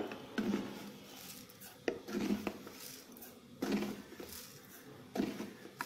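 Roasted green mango pulp being worked by hand in water in a stainless steel bowl: a wet stirring sound about every second and a half, with a few sharp clinks against the metal.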